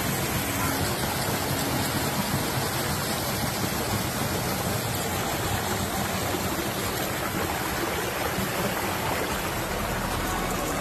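Water of a small stream rushing and splashing over a low cascade, a steady, even rush.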